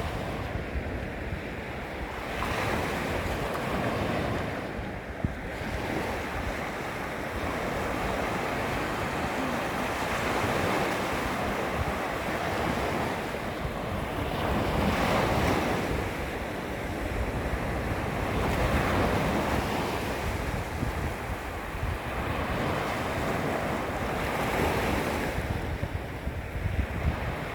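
Small waves lapping against a beach shoreline, washing in and swelling louder every few seconds, with wind rumbling on the microphone.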